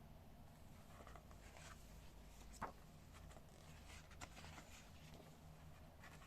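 Near silence over a faint low hum, with soft paper rustles and two light clicks, about two and a half and four seconds in, from the pages of a hardcover book being handled and turned.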